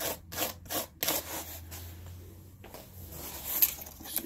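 Small clear plastic safety puncture tool sawing back and forth through the tape and cardboard of a shipping box: a few quick rasping strokes, two or three a second, then one longer scrape, with a sharp click a little before the end.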